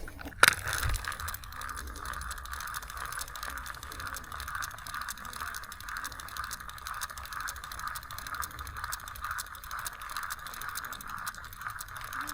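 Fishing reel being cranked steadily, a fast even clicking of its gears as the lure is retrieved, after one sharp click about half a second in.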